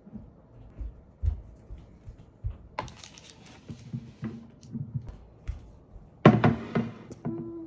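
Soft knocks and thunks of handling on a tabletop, with a louder clatter a little over six seconds in as a baking tray is set down, then a short steady ringing tone just before the end.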